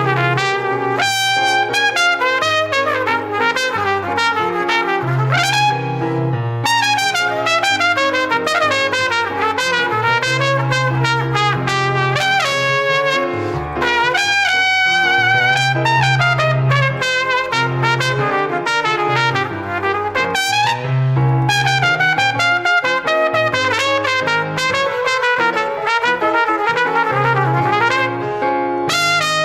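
Instrumental break of a Spanish-language song: a trumpet plays melodic runs and glides over brass and a bass line that steps from note to note.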